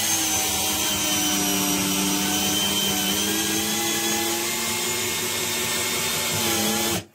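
Bosch GSB 120-LI 12 V cordless drill/driver running under load, driving a long 11 cm screw into wood without a pilot hole. It makes a steady motor whine with gearbox noise that cuts off suddenly near the end as the screw seats.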